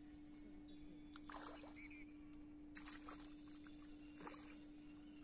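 Faint water splashes of a hooked tilapia thrashing at the surface as it is reeled in to the bank: three brief splashes about a second and a half apart, over a steady low hum.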